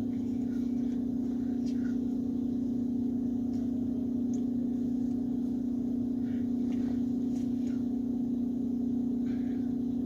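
A steady low hum held at one pitch, with a few faint clicks and taps over it.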